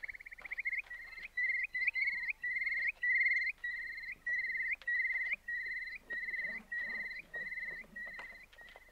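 Eurasian curlew calling: a rising whistle, then a long run of rising 'cur-lee' notes, about two a second, fading gradually near the end.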